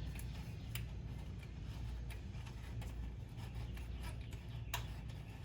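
Faint rubbing and a few scattered light clicks as a kickdown cable is fed through its bracket, the clearest click near the end, over a steady low hum.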